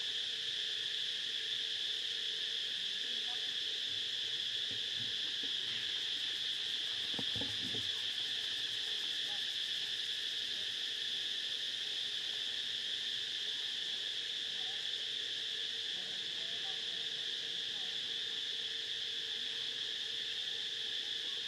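Steady, high-pitched insect chorus, an unbroken drone that holds the same pitch and level throughout.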